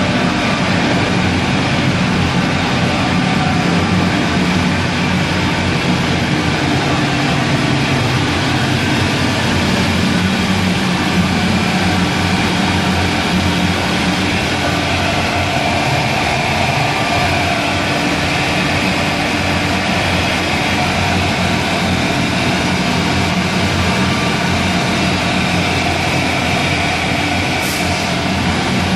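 Egg tray drying line running: a loud, steady machine drone from the metal drying oven's belt-driven centrifugal hot-air fan and its motor, with a low hum and a faint high whine held throughout.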